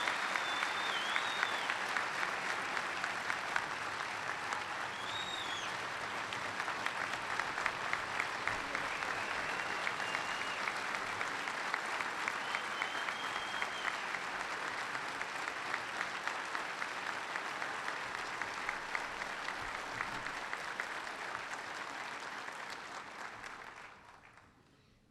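A large crowd applauding steadily, with a few high whistles among the clapping; the applause cuts off abruptly near the end.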